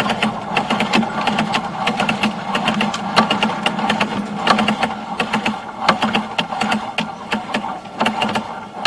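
Sewer inspection camera's push cable and reel being drawn back, giving irregular rapid clicks and rattles over a steady mechanical hum.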